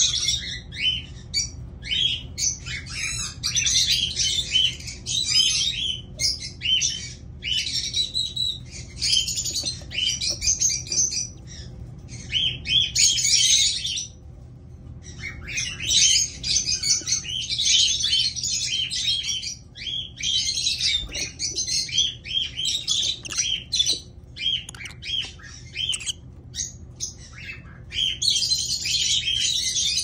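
Lovebirds in a nest box with their chicks, calling in a busy, crowded run of short, high calls. There is a brief lull about halfway through.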